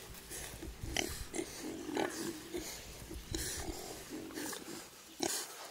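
Piglets grunting close to the microphone, short low grunts following one another, with a few sharp clicks among them.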